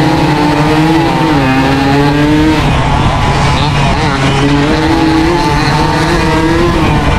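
Suzuki AX100's two-stroke single-cylinder engine revving hard at racing speed, its pitch wavering up and down. It eases off briefly around three seconds in, then revs back up.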